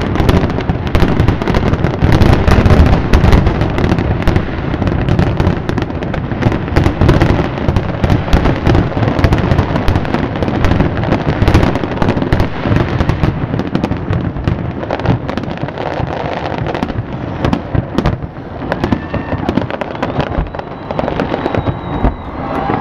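Fireworks grand finale: a dense, continuous barrage of rapid overlapping bangs and crackles, easing slightly in the last few seconds.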